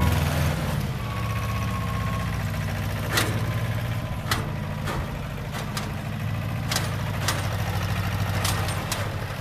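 An engine idling steadily, with a few sharp clicks scattered through it.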